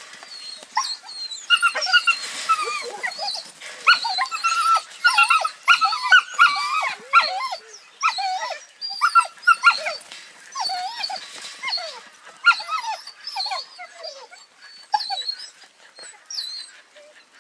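Young Border Collie whining and yipping: a rapid string of short, high, wavering calls that thins out near the end.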